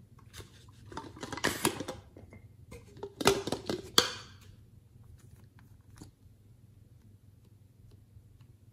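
Hands handling small plastic objects on a table: two short bursts of rustling and knocking, with a sharp click about four seconds in, then a faint click a couple of seconds later.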